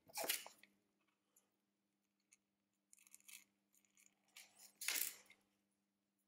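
Faint clicks and scrapes of small tools and phone parts handled during a Samsung Galaxy S9 battery replacement, with two louder scraping bursts, one just after the start and one about five seconds in, over a low steady hum.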